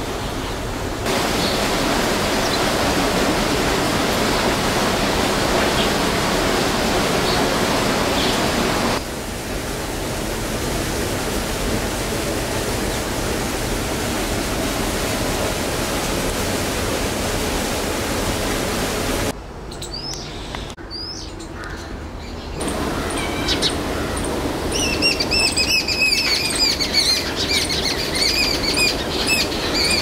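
Small birds chirping over a steady outdoor hiss that changes abruptly several times. In the last seven seconds one bird calls rapidly, a run of quick high chirps repeated many times a second.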